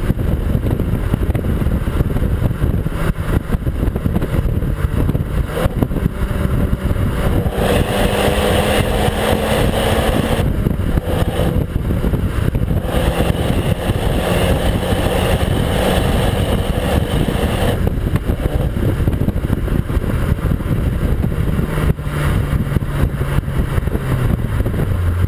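Exhaust of an MTM-tuned Audi Q3 with a 2.0 TFSI turbocharged four-cylinder engine, heard right at the tailpipes while driving. The engine note rises and falls several times as the car pulls, over steady road and wind noise.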